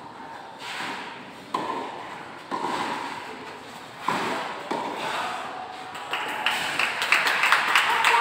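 Tennis rally: a ball struck by rackets and bouncing on the court, a string of sharp pops about a second apart, each echoing in a large hall.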